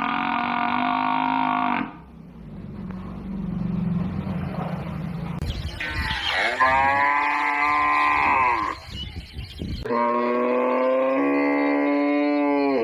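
Cattle mooing in long, drawn-out calls. One call ends about two seconds in, a second rises and falls in pitch near the middle, and a third starts about ten seconds in. Between them there is a lower, rougher lowing.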